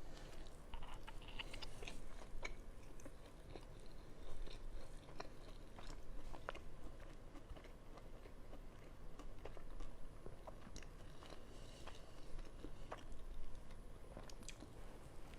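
A person chewing food close to the microphone, with scattered small crunches and wet mouth clicks at an irregular pace.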